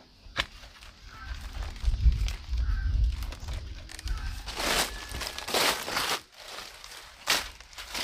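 Rustling, crinkling handling sounds in several short bursts, over a low rumble in the first half.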